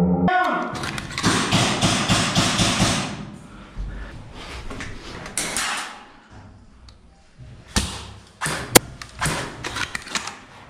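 Thuds, knocks and a few sharp cracks in a corrugated-metal-walled room, with a stretch of dense rustling noise in the first three seconds.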